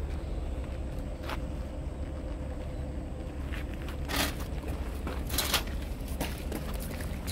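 Canvas of a Thule rooftop tent's window flap rustling in a few short bursts as it is rolled up and fastened by hand, the loudest about four and five and a half seconds in, over a steady low rumble.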